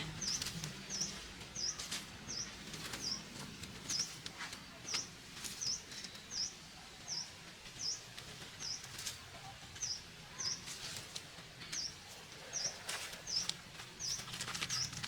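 A bird repeating a short, high chirp about twice a second, each chirp dipping and rising in pitch, with scattered faint clicks and knocks behind it.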